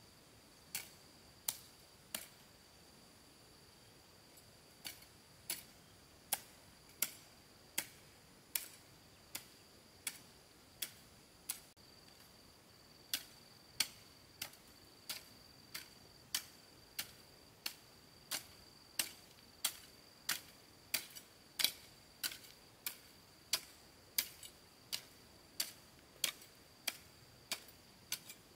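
A hoe striking the ground in a steady rhythm, a sharp hit about every two-thirds of a second, with one short pause near the start. A faint steady high-pitched tone runs underneath.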